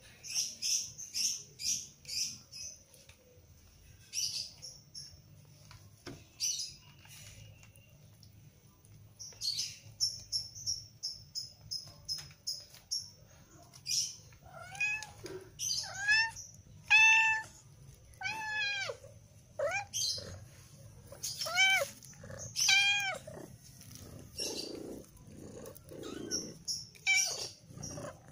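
Young kittens mewing: a run of about eight short, arching, high-pitched mews from about halfway through to near the end. Before that come bursts of quick, high chirps.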